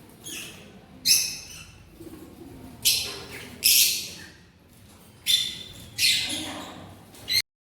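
Caged pet birds giving loud, harsh screeching calls, about six in all, each a fraction of a second to a second long. The sound cuts off abruptly near the end.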